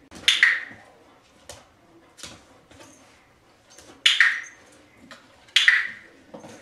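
Sharp clicks with a short ringing tail, some in quick pairs: loud ones near the start, about four seconds in and about five and a half seconds in, with fainter clicks between.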